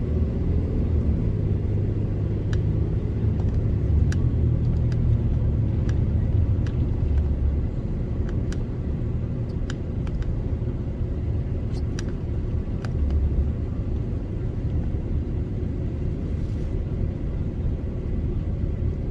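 Truck driving slowly on back streets, a steady low engine and road rumble heard from inside the cab, with a few light ticks scattered through it.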